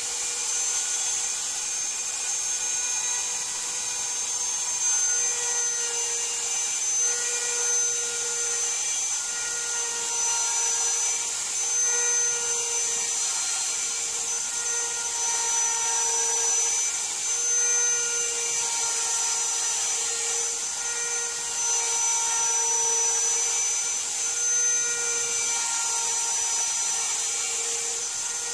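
Router spindle on an MPCNC machine running with a steady high whine as a 1/4-inch end mill cuts a 10 mm deep pocket in iroko hardwood. Fainter tones shift in pitch every second or two as the stepper motors move the cutter along the toolpath.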